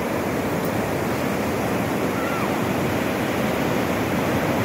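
Ocean surf: waves breaking and white water washing through the shallows, a steady rushing.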